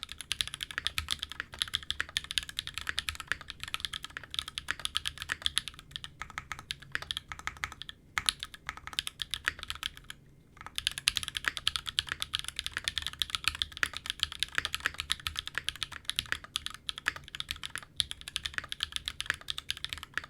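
Continuous fast typing on a mechanical keyboard with lubed Owlab Tungsten linear switches, an aluminium plate and GMK keycaps: a dense stream of crisp clacks, with short pauses about eight and ten seconds in.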